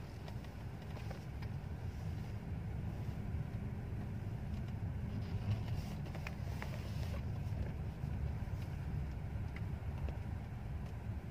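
Low, steady rumble of a Mercedes-Benz S-Class sedan driving slowly, heard from inside the cabin.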